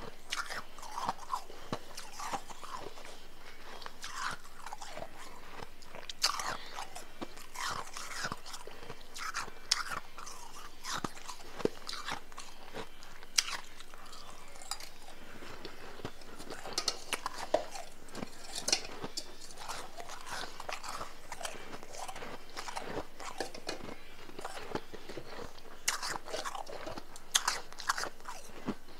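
Chewing and crunching powdery, blender-crushed ice, with many irregular crisp crunches.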